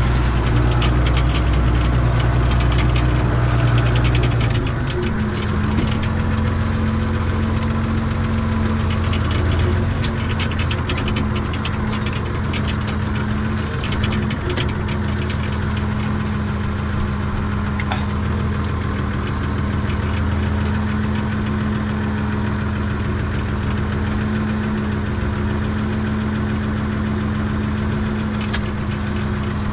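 Renault farm tractor's diesel engine running, heard from inside the cab. About five seconds in the engine note changes and then runs steadily, with light rattles of the cab.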